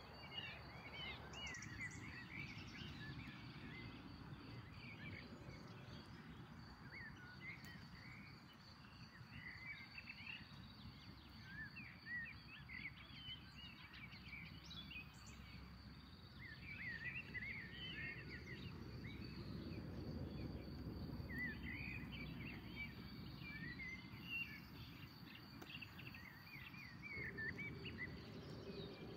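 Small birds chirping on and off in short twittering phrases over a steady low rushing background, with a faint steady high whine throughout.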